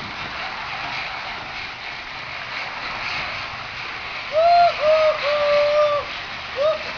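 An animal calling over steady background noise: a run of three short arching notes about four seconds in, the last one held for nearly a second, then one more short note.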